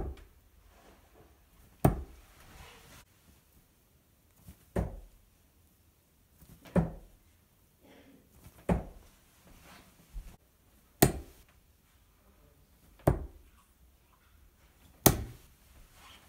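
Steel-tip darts striking a sisal bristle dartboard: about eight sharp thuds, roughly two seconds apart.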